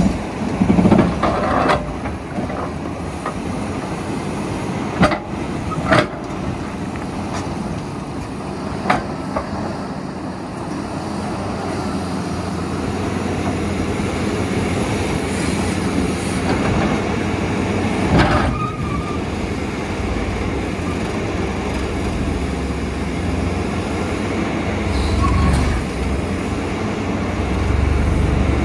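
Terex RH30F hydraulic excavator running steadily under load while its Xcentric XR80 vibrating ripper breaks into rock, with a handful of sharp knocks and cracks of rock, the loudest about 5, 6 and 18 seconds in.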